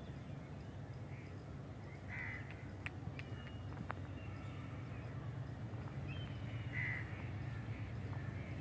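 A distant diesel passenger train approaching: a steady low rumble that slowly grows louder, with a bird cawing a few times and faint chirps over it.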